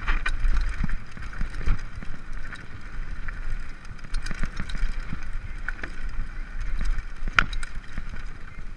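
Mountain bike rolling down a bumpy dirt singletrack, with wind rumbling on the microphone and the bike rattling and clicking over the bumps. A sharper knock comes about seven seconds in.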